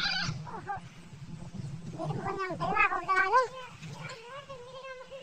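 Goat caught in a gate bleating in distress: several short quavering cries from about two seconds in, then one longer wavering bleat near the end.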